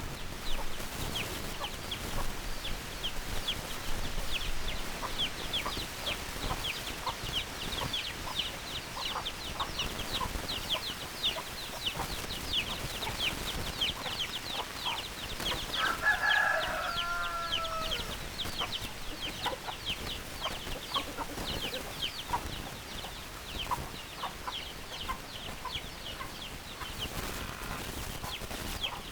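Chickens calling: quick high-pitched chirps repeat throughout, with a loud drawn-out call falling in pitch about sixteen seconds in.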